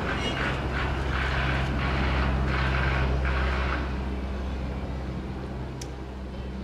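Steady low engine-like drone with a hiss on top, swelling slightly and then fading over the last few seconds.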